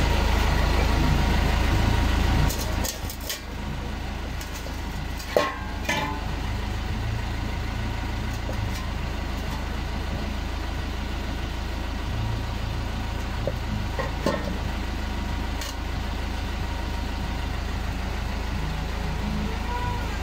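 Steady low mechanical rumble like an idling engine, louder for the first two and a half seconds, with a few light clicks and taps.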